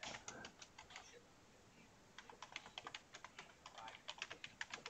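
Faint typing on a computer keyboard: irregular keystrokes typing a web address, a run of keys, a pause of about a second, then more keystrokes.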